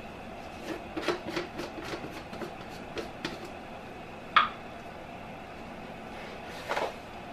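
A measuring cup and salt being handled: a run of small clicks and taps, then one sharper clink about four and a half seconds in and a brief rustle near the end, over a steady low background hum.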